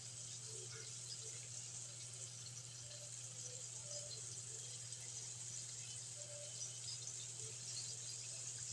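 Chicken pieces frying in a wok of hot oil: a steady sizzle with scattered small pops and crackles.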